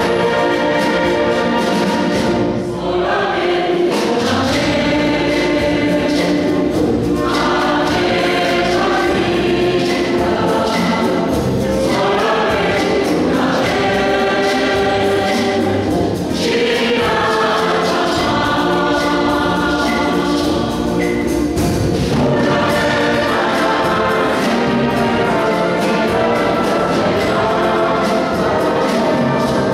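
Choir singing a bolero in phrases of a few seconds each, accompanied by a wind band of flutes, clarinets, French horns and brass.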